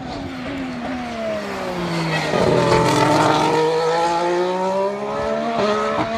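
Ferrari Formula 1 car's 1.6-litre turbocharged V6 passing close: the engine note falls as the car slows into the corner, is loudest about two and a half seconds in, then rises steadily as it accelerates away, with a gear change near the end.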